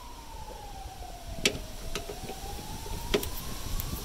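A siren wailing, its single tone falling slowly in pitch and then rising again. A few sharp clicks sound over it, the loudest about a second and a half in and again about three seconds in.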